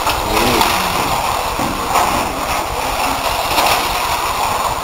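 Carrera Servo slot cars running on a plastic track: a steady, loud mechanical whir.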